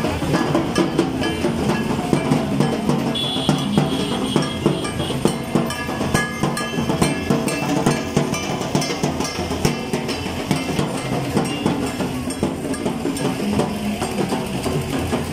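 Loud procession music with fast, dense drumming, many strikes a second.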